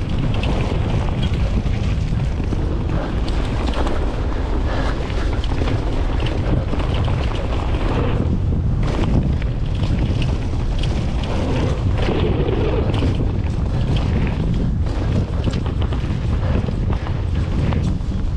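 Wind buffeting the microphone during a fast mountain-bike descent, with the tyres rolling over the dirt trail and the bike clattering over bumps.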